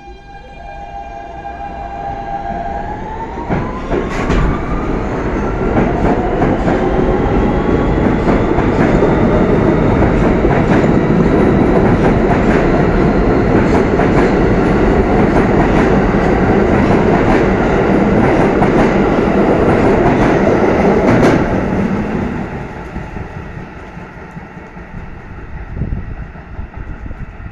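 Kawasaki R160B subway train with Siemens propulsion pulling out of the station. First a steady electric whine that rises in pitch over the first few seconds as it picks up speed. Then loud wheel and rail noise with occasional clicks as the cars pass close by, dropping off sharply about 21 seconds in as the last car passes and fading as it leaves.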